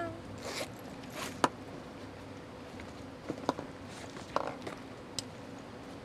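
A fabric bag being emptied onto a counter: soft rustling of the bag and a scattering of small knocks and clicks as objects come out and are set down.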